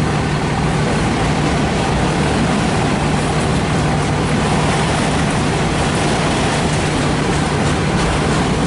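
A long CN freight train of empty cars rolling past, wheels running on the rails in a steady, loud rumble with a constant low hum underneath.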